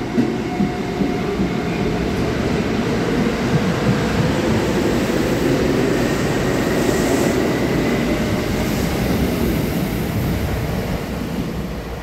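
Kintetsu 20000 series 'Raku' four-car electric train pulling out and accelerating past, its wheels rolling on the rails with running-gear rumble. The sound grows louder through the middle, with a faint rising whine, then fades near the end as the train draws away.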